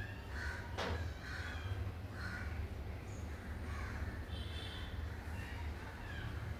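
A series of short animal calls repeated roughly once a second, with a sharp click about a second in, over a steady low hum.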